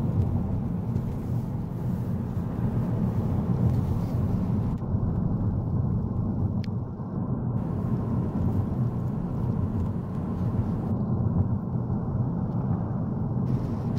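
Car driving on a paved highway, heard from inside the cabin: a steady low rumble of tyre and engine noise.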